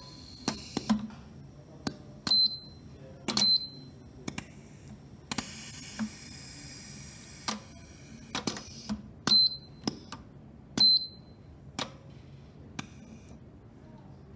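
Pneumatic clamps and arm cylinders on an automation test rig clacking as they actuate: a dozen or so sharp metallic clicks, several with a brief high ring, and a few seconds of compressed-air hiss in the middle.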